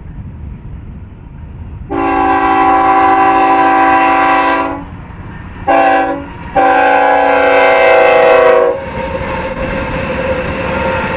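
Air horn of a BNSF GE ES44DC diesel locomotive leading an approaching train: a long blast, a short one and another long one. Then the diesel engines of the locomotive consist run loud as they pass close by.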